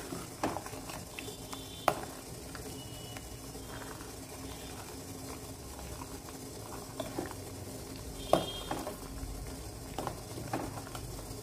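A steel spoon stirring simmering milk thickened with milk powder in a steel pan, clinking against the pan now and then, most sharply about eight seconds in.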